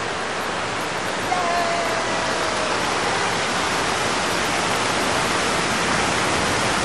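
Fountain water splashing and rushing in a steady wash of noise, a little louder from about a second in.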